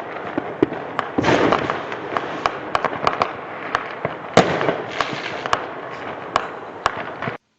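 Fireworks and firecrackers going off: many sharp bangs over a steady crackling din, the loudest about four and a half seconds in. The sound cuts off suddenly near the end.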